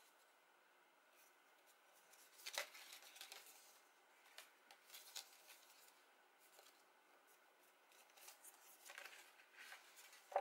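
Faint rustling and crackling of cardstock being folded and handled by hand, in a few short bursts, the sharpest a little over two seconds in.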